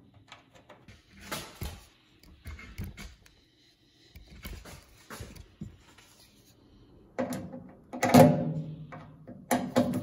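Small clicks and taps of a screw being turned in by hand into a microwave oven's sheet-metal outer case, with louder knocks and clatter in the last three seconds.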